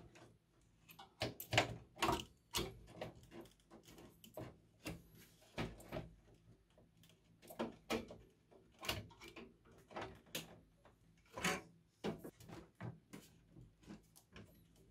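Irregular clicks, taps and rustles of hands working inside an open desktop PC case: plastic cable connectors and wiring knocking against the metal chassis as the cables are moved and a graphics card is put back in place.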